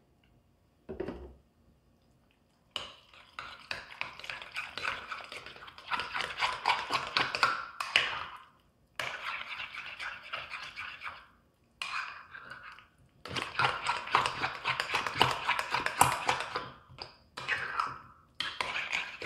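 A metal utensil stirs a thick Greek-yogurt tzatziki mixture in a glass bowl, scraping and clinking against the glass in spells of a few seconds with short pauses between them. There is a light thunk about a second in.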